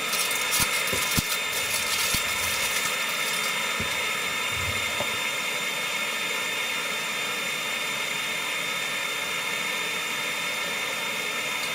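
Hot-air rework station's blower running steadily: a constant hiss with a thin whine. A few light handling clicks come in the first second or so.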